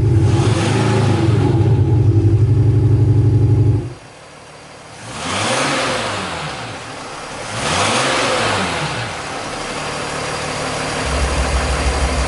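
Mercedes G-class V6 diesel fitted with an active sound booster: a loud, deep, steady idle drone that cuts off sharply about four seconds in. The engine is then blipped twice, each rev rising and falling within about a second. Near the end a deep steady hum starts up again.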